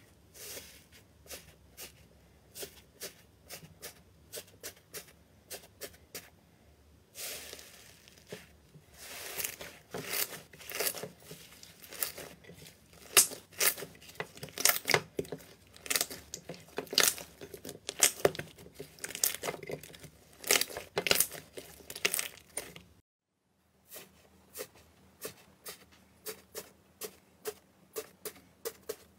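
Hands tearing and squeezing iceberg slime with a dried crust: a run of sharp crackles and tearing sounds, densest and loudest in the middle. After a short break about two-thirds through, fingers pressing into another iceberg slime give quieter, separate crackles.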